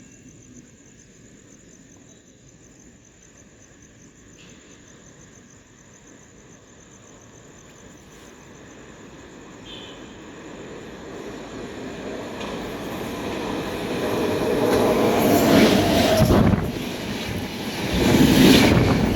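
Fast train approaching on the rails, its rumble and wheel-on-rail noise building steadily from faint to loud, with two loud surges near the end as it arrives.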